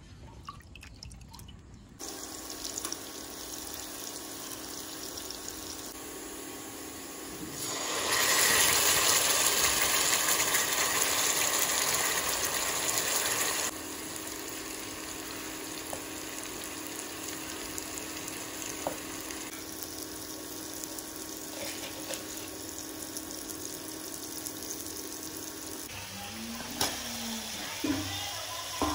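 Masala frying in a kadhai, a steady sizzle over a faint steady hum. The sizzle grows louder for several seconds in the middle. Near the end a spatula scrapes and knocks against the pan as it is stirred.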